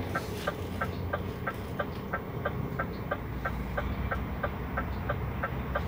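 A steady, even ticking, about four ticks a second, inside the cab of a Scania truck, over the low hum of its idling diesel engine.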